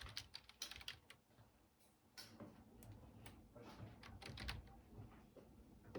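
Quiet typing on a computer keyboard: soft keystroke clicks in uneven runs, with a pause of about a second between the first run and the rest.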